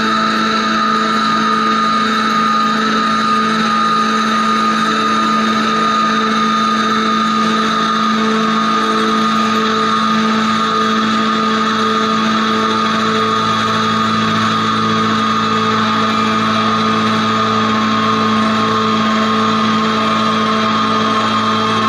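Many instruments sustaining a drone on the notes A and E: a loud, steady chord of held tones with no breaks. A lower tone joins the chord a little past halfway through.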